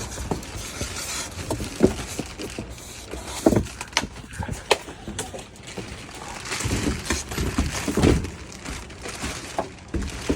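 Irregular knocks, scrapes and rustling of a boxed scooter and its packaging being handled and unpacked.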